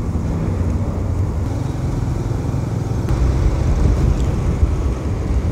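TVS Raider 125's single-cylinder engine running steadily while riding, under a heavy, fluctuating low rumble of wind on the helmet microphone.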